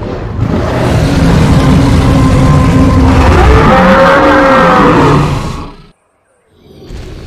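Dinosaur roar sound effect: one long, loud roar, a deep rumble under a pitched tone that bends up and down in its second half. It stops abruptly about six seconds in, and a quieter sound starts again near the end.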